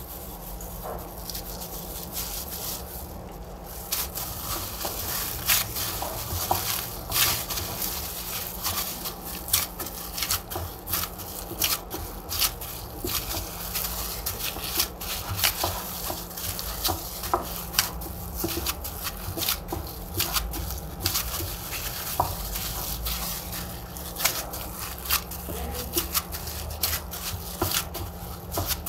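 Dough being kneaded by hand in plastic gloves in a cut-glass bowl: irregular crinkles, squishes and small clicks of the gloves, dough and glass, over a steady low hum. The handling noises get busier about four seconds in.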